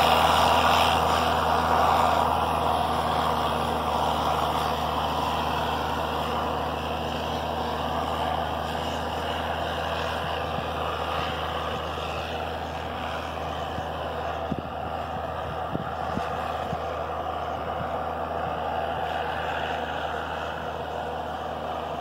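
The Mercedes-Benz diesel engine of a PistenBully 600W Polar snow groomer runs steadily as the machine climbs away up the slope. Its deep drone slowly fades, with a few faint knocks about two-thirds of the way through.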